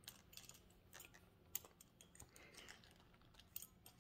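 Near silence with a few faint, scattered clicks and light taps of carry gear being handled.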